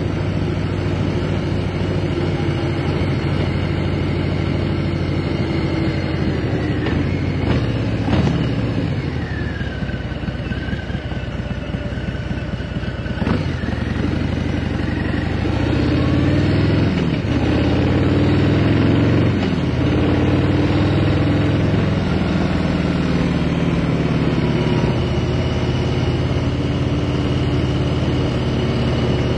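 Harley-Davidson V-twin motorcycle engine running under way, its pitch rising and falling several times through the middle as the rider accelerates, shifts and slows.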